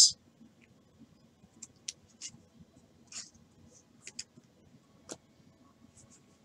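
Diamond Kings baseball cards sliding and clicking against each other as a stack is flipped through by hand: scattered soft clicks and brief swishes, with a sharper click about five seconds in.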